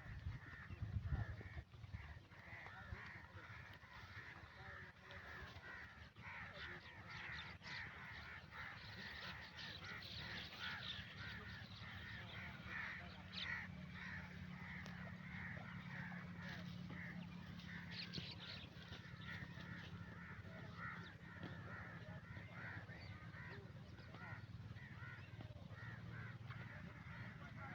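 Many birds calling and chattering together, a dense, continuous mix of short calls, over a faint steady low hum.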